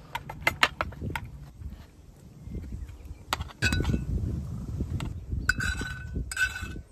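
Metal mess tin and its lid being handled, giving a quick run of sharp clicks and clinks. Later a metal spoon knocks and clinks in the tin as sauce is spooned over the food. The second half has a low rumble under it, and there are two brighter ringing clinks near the end.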